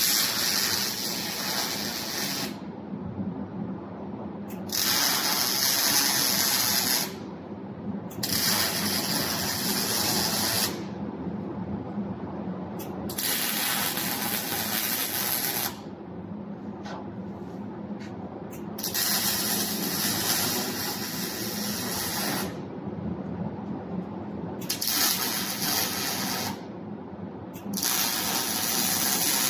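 MIG welding arc sizzling in about seven short runs of two to four seconds each, with brief pauses between them, over a steady low machine hum.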